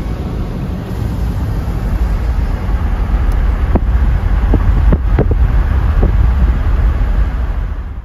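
Car interior road noise while driving: a steady low rumble of tyres and engine with rushing wind, growing a little louder a couple of seconds in. A few short, sharp ticks sound about halfway through.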